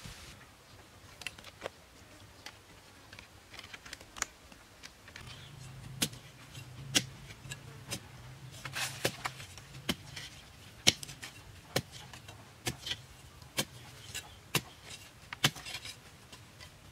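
Hoe chopping into dry, pebbly soil: sharp strikes roughly once a second from about six seconds in, with short bouts of soil scraping between.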